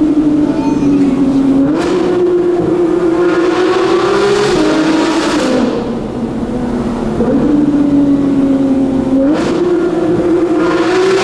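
Porsche 911 GT3 (991.2) flat-six with a full Fi exhaust, driven hard and loud. The engine note climbs and drops in steps several times as the PDK gearbox changes gear.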